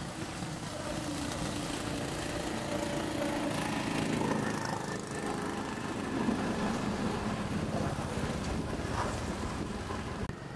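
A motor engine running steadily off-screen, a little louder in the middle.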